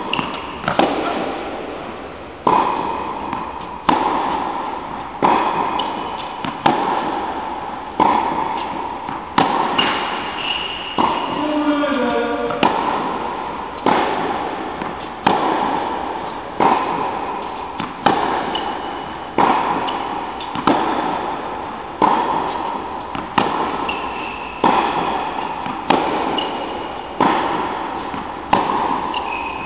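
Tennis rally: racket strings striking the ball about every second and a half, each hit echoing in a large indoor hall, with a few short squeaks between strokes.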